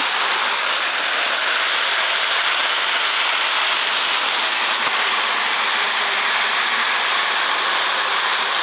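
Lionel toy train running on its track, giving a steady, even hiss-like whir of motor and wheels.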